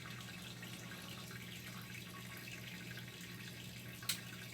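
Washing machine drain pump running with a steady hum as it pumps water out of a full tub, with water rushing through; a single sharp click about four seconds in.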